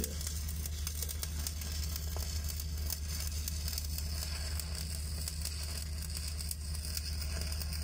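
Shielded metal arc (stick) welding on the underside of a large steel pipe: the arc crackles and sizzles steadily, with a constant low hum beneath it.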